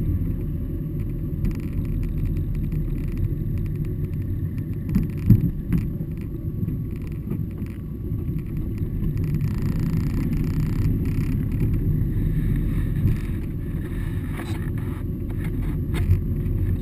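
A car driving slowly, heard from inside the cabin: a steady low rumble of engine and tyres on the road, with a short thump about five seconds in.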